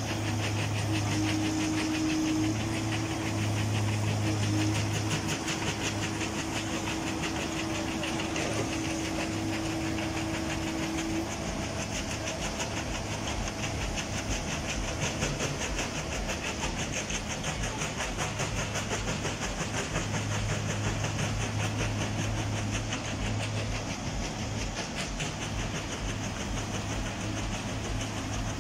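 Shinrai backhoe loader's engine running steadily under load while its hydraulics hold the machine up off its wheels, with a fast even pulsing throughout. A steady higher tone over the engine stops about eleven seconds in.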